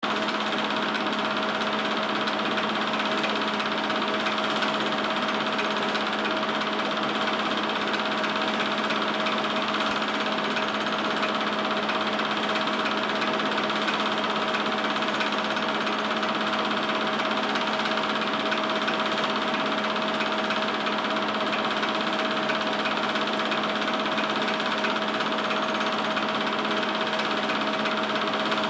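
Film projector running: a steady motor whirr with fast, even mechanical clatter and a constant hum.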